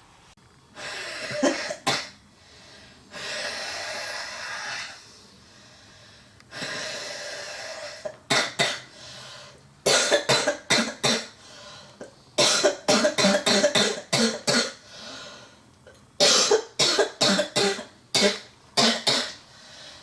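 A girl's deep, chesty coughing fit: long, noisy, wheezing breaths in the first half, then runs of five to eight rapid coughs in quick succession. The uploader takes the cough for a sign of heavy chest congestion, the kind of sound a severe respiratory condition such as bronchitis can make.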